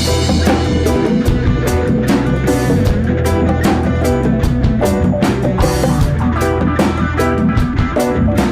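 Live rock band playing a song: a drum kit keeps a steady beat under guitar and bass, with a cymbal crash right at the start.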